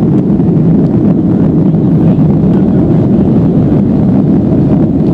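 Cabin noise of a Boeing 757-200 climbing out just after takeoff: its two Pratt & Whitney PW2037 engines at takeoff thrust and the rushing airflow, heard through the fuselage as a loud, steady, low-pitched noise.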